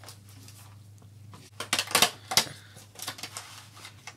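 A small cardboard product box being opened by hand: a quick run of sharp clicks and scrapes about one and a half seconds in, loudest around two seconds, then lighter taps and rustles.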